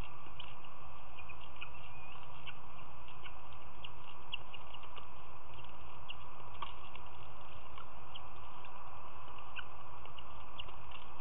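Outdoor ambience of scattered short bird chirps over a steady background hiss.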